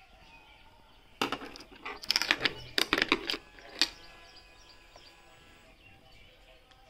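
Motorcycle ignition key and its keychain clicking and jingling as the key is turned in the switch: a cluster of sharp clicks and rattles between about one and four seconds in, with little else around it.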